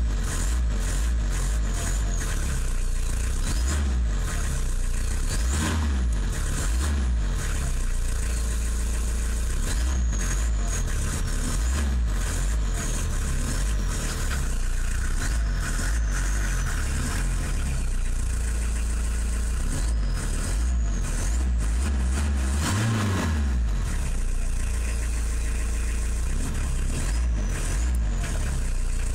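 Opel Astra G's 1.7 DTL four-cylinder turbo-diesel engine running steadily and humming, freshly rebuilt with a new crankshaft, connecting rods and rod bearings. Its revs rise briefly once near the end.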